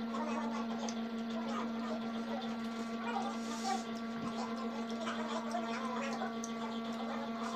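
A person eating roast pork close to the microphone: scattered small wet chewing and tearing sounds, with a brighter crackle about three and a half seconds in. A steady electrical hum runs underneath.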